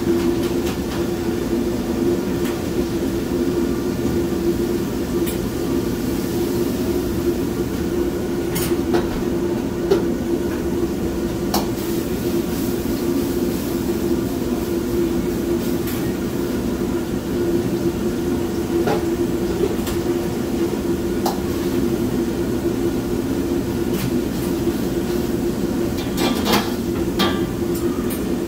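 Steady roar of a commercial gas wok burner and the kitchen exhaust hood, with a low hum running under it. Now and then a metal utensil clanks against the wok or range, several times in quick succession near the end.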